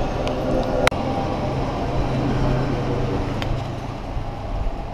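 Steady low rumble of road traffic and workshop background noise, with one sharp click about a second in and a fainter tick in the middle.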